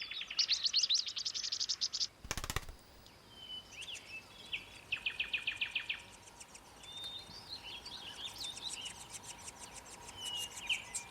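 Several wild birds calling, with rapid high trills and short chirps coming in bursts. A brief thump about two and a half seconds in.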